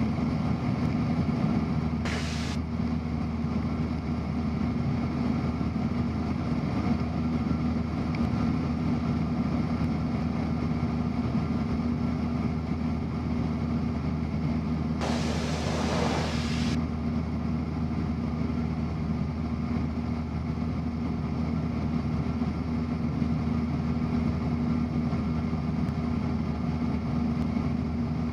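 Cessna 172's piston engine and propeller droning steadily at cruise power in level flight, heard inside the cabin. A short hiss breaks in about two seconds in, and a longer one about halfway through.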